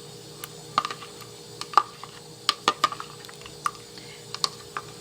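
A spoon clinking irregularly against the side of a cup, a dozen or more short clicks, while stirring yeast into warm water to dissolve it.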